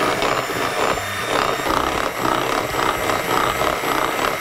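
Electric hand mixer running at a steady high speed with a constant whine, its beaters churning double cream and icing sugar as it whips towards soft peaks.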